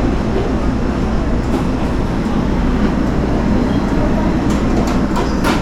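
Steady rumble and hiss of road and engine noise heard from inside a moving vehicle.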